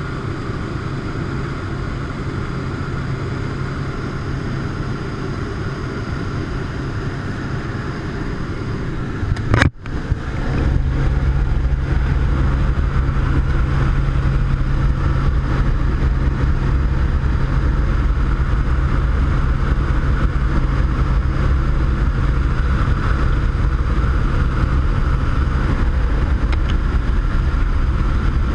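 Steady drone of a jump plane's engine and propeller heard inside the cabin. A little under ten seconds in there is a sudden jolt as the roll-up jump door opens, and from then on the engine and rushing air are louder and deeper.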